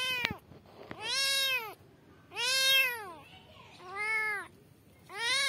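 A young kitten meowing loudly and repeatedly, about one call a second. Each meow rises and then falls in pitch.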